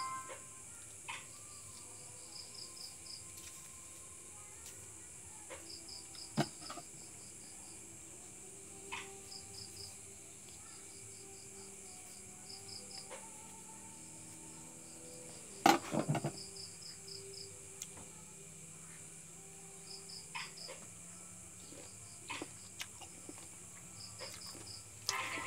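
Crickets chirping: short runs of four to six quick high pulses, repeating every few seconds over a steady high hiss. A few sharp knocks from handling, the loudest about sixteen seconds in.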